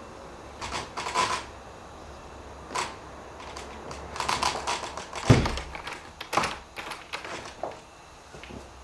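Irregular knocks and clicks, with one heavier thump about five seconds in.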